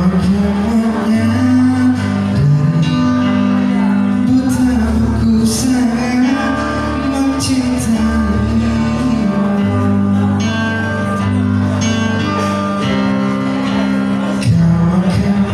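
Music: a male voice singing over an instrumental backing with held bass notes.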